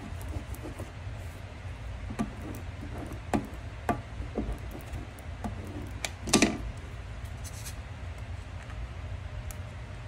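A plastic decal squeegee pressed and worked against a car window, giving a few light knocks and then one louder scraping rub a little past halfway, over a steady low hum.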